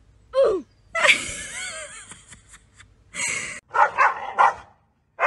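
Two dogs barking at each other: a short falling yelp, a longer noisy outburst, then several sharp barks in quick succession.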